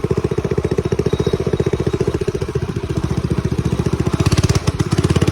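Mini bike's small engine running with a steady, rapid putter; about four seconds in it grows a little louder and harsher.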